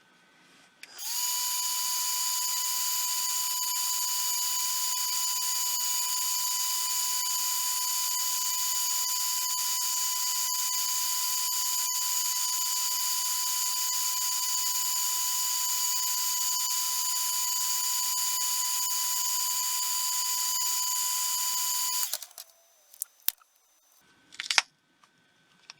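A high-speed rotary tool running at a steady high-pitched whine for about twenty seconds, starting about a second in and cutting off suddenly, followed by a few small clicks and knocks.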